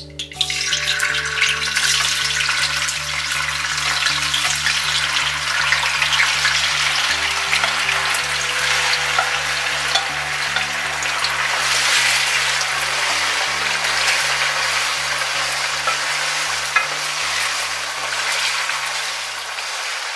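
Cubes of tofu tipped into hot oil in a nonstick pot: a loud sizzle starts at once as they hit the oil and carries on as steady frying while they are stirred with a wooden spatula.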